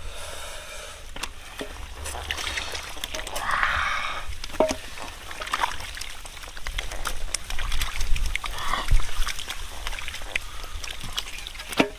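Live catfish wriggling and slapping on wet mud as bare hands sort through the pile: an irregular run of wet slaps, squelches and clicks.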